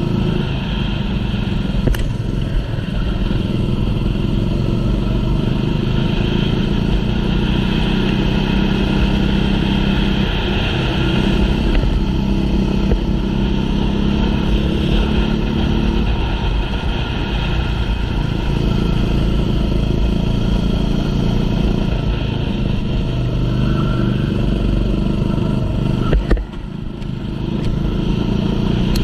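Racing kart's small engine running hard and continuously, its revs rising and falling a little, with a brief drop in level near the end.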